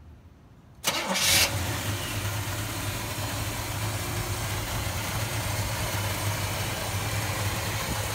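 Chevrolet 396 Turbo-Jet big-block V8 starting about a second in, catching with a brief loud burst, then settling into a steady idle.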